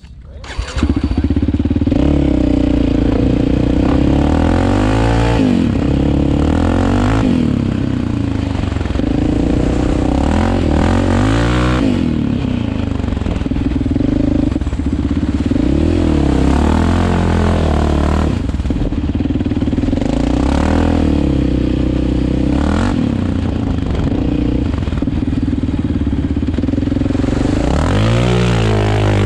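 Yamaha Raptor 700 ATV's single-cylinder four-stroke engine being ridden hard, its pitch climbing and dropping every few seconds as the throttle is opened and eased off.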